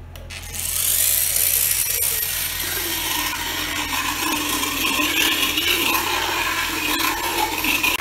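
Motorized equine dental float rasping a horse's teeth: a steady grinding with a motor hum, starting about half a second in.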